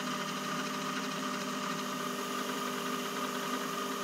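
Myford ML7 lathe running with a steady, even hum while turning down a free-cutting steel bar, taking a 20 thou cut.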